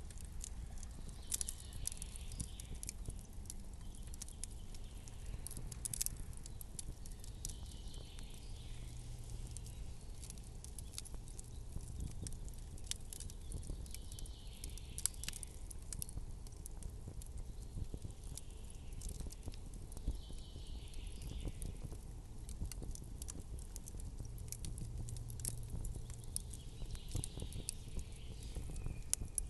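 Campfire crackling, with frequent small sharp pops and snaps over a low rumble. A soft hiss rises and fades every five or six seconds.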